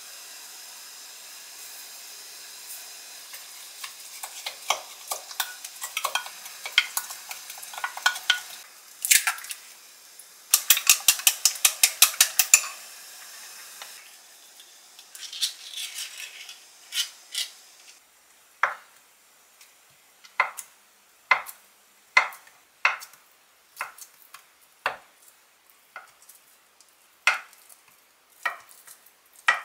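A spoon clinks against a small glass bowl as seasoning is added and stirred, with a quick run of clinks about ten seconds in. After a few clicks from a metal can being opened, a kitchen knife slices through Spam onto a wooden cutting board, about one sharp chop a second.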